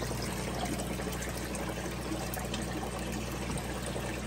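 Water pouring steadily from a hang-on-back aquarium filter's two waterfall outlets and splashing into the tank, over a steady low hum.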